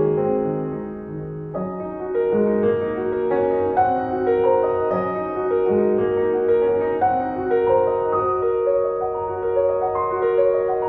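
Background piano music: a melody of held notes changing about once or twice a second.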